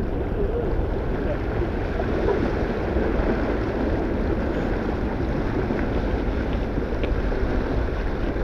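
Steady wind noise on the microphone with water rushing past the hull of a sailing yacht under way.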